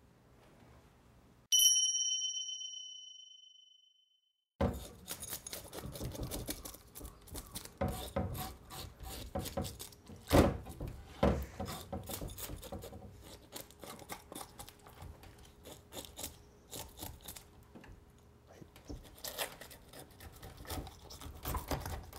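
A single bright chime about a second and a half in, ringing out for about two seconds, then a moment of dead silence. From about five seconds in, a knife works a sea bream on a wooden cutting board, with irregular scrapes and sharp knocks as the fish is cut open for gutting.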